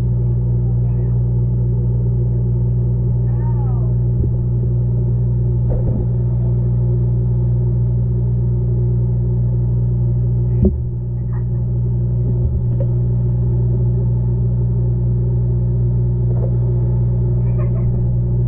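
Steady low droning rumble picked up by a camera's microphone under water, with one sharp knock a little past halfway.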